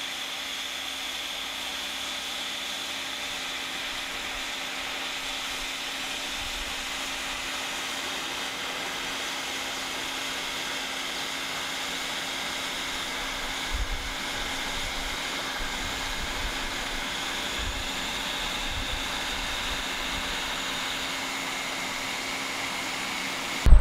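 Samger 1600 W hot-air plastic welding gun running steadily, its fan blowing hot air as HDPE welding rod is fed through its speed-welding nozzle. The sound is a steady rush of air with a high whine and a low hum, and it cuts off just before the end.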